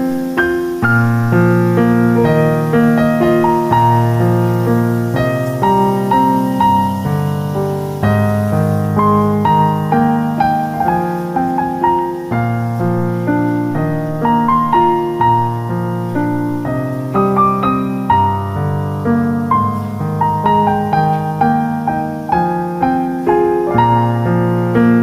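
Background piano music: a steady flow of repeating melodic notes over a low bass line.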